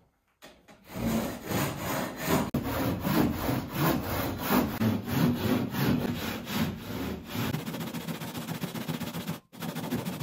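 Handsaw cutting through gypsum board (drywall) at an angle to make a mitred edge: rhythmic back-and-forth scraping strokes, about three a second, starting about a second in, with a brief break near the end.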